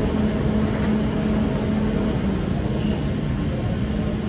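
Steady hum inside a Dubai Metro train car standing at a station, the car's air-conditioning and onboard equipment running with a constant low tone.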